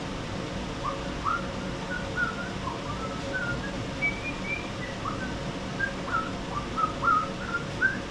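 A person whistling an irregular tune of short, mostly rising notes, getting busier and louder toward the end, over a steady background hum.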